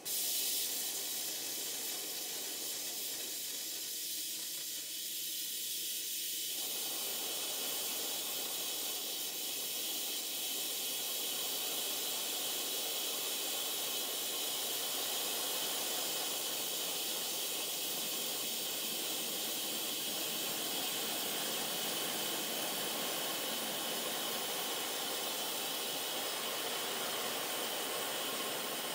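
A 5-inch gauge GWR 14XX live-steam model locomotive blowing off steam: a loud, steady hiss that starts suddenly and keeps on. Water is thrown out with the steam and spatters the engine, the sign of the boiler priming.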